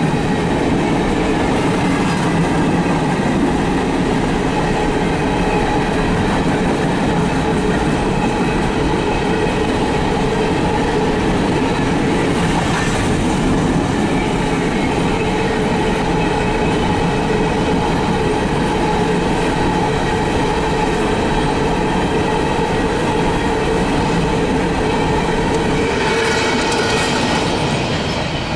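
Empty CSX coal hopper cars rolling past at close range: a steady rumble and rattle of steel wheels on the rails and the empty cars' bodies, easing a little near the end.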